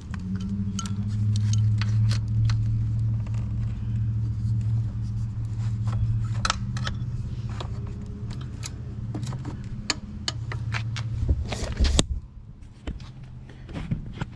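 Light metallic clicks and rattles as the scooter's throttle cable and carburetor linkage are handled. Under them is a steady low hum that stops about twelve seconds in.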